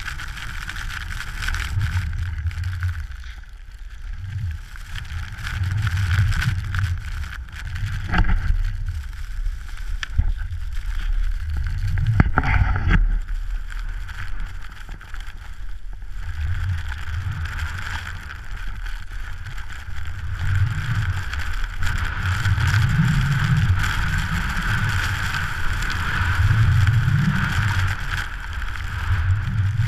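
Wind buffeting the microphone of a pole-mounted action camera while skiing down through snow, as swelling, gusty rumbles over a steady hiss of skis on snow. A couple of short knocks come about eight and twelve seconds in.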